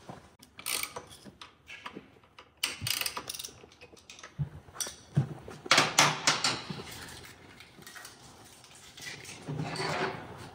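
Irregular clicks and clatter of hand tools and metal parts being handled, loudest about six seconds in.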